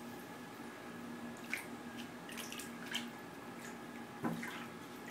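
Bathwater splashing and lapping softly as a baby's hands and foam letters move through it in a shallow tub, with a few short splashes in the middle and a slightly louder one about four seconds in. A steady low hum runs underneath.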